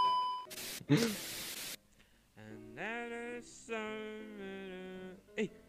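Edited-in sound effects: a steady electronic beep for about half a second, then two bursts of static hiss, then after a short gap two long held voice-like tones that glide up as they start, like sung notes.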